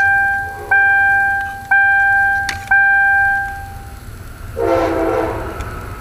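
A car's electronic warning chime dinging four times, about once a second, each ding sharp and fading, sounding with the ignition switched on. A short low hum follows near the end.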